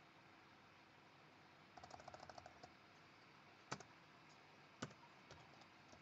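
Computer keyboard keys being typed: a quick run of about ten light taps about two seconds in, then two sharper single key clicks about a second apart, and a few faint clicks near the end.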